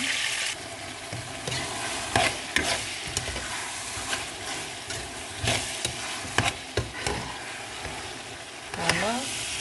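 Okra, tomatoes, onion and peppers sizzling in oil in a frying pan while a spoon stirs them. The spoon scrapes and knocks against the pan at irregular moments over a steady frying hiss, which is loudest in the first half-second.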